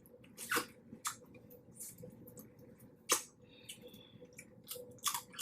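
Wet eating sounds from a seafood boil: scattered squishy smacks and clicks of food being handled and chewed, the loudest about half a second in and about three seconds in, with more of them near the end. A faint steady hum runs underneath.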